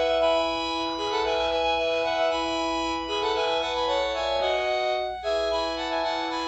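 Panasonic KX-TGLA40 cordless phone handset playing one of its built-in polyphonic ringtone melodies, organ-like notes, with a short break about five seconds in before the tune starts again.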